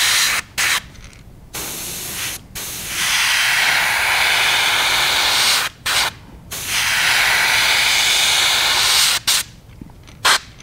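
Airbrush spraying opaque black paint at reduced air pressure, an airy hiss switched on and off with the trigger in several bursts: two brief ones, then two long passes of about three seconds each.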